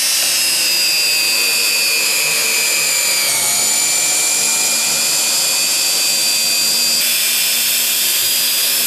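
Cordless drill-driver running steadily as it drives a long SPAX washer-head wood screw into a wooden block, its high motor whine stepping down slightly in pitch a few seconds in as the screw goes deeper.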